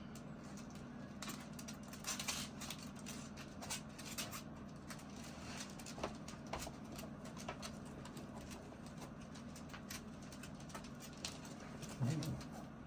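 Irregular light clicking and pattering from small dogs moving about, over a steady low hum, with a short low-pitched sound near the end.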